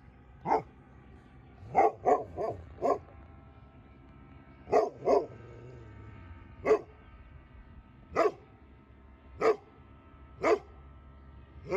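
A dog barking: about a dozen short barks at irregular intervals, some coming in quick pairs and threes.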